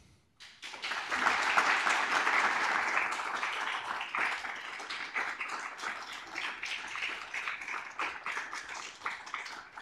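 Audience applauding: clapping starts about half a second in, is loudest over the first couple of seconds, then slowly thins out.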